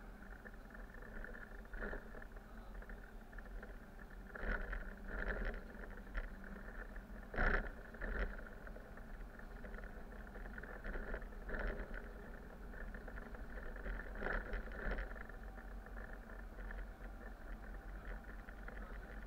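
Bus engine and drivetrain humming steadily, heard from the driver's cab while driving, with short knocks and rattles that mostly come in pairs, the loudest about seven and a half seconds in.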